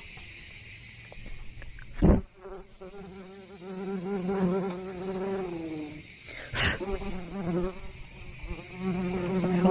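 Steady high-pitched insect chorus from the wooded shore, with two short knocks, one about two seconds in and one near the seven-second mark.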